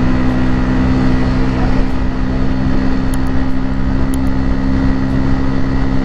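Hero Splendor motorcycle's single-cylinder four-stroke engine running at a steady cruising speed through an aftermarket RX100-style silencer, a constant exhaust note heard from the rider's seat.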